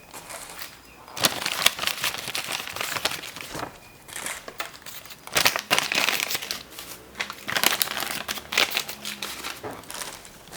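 Fast-food wrapping paper and packaging being crinkled and unfolded by hand in a series of irregular rustling bursts.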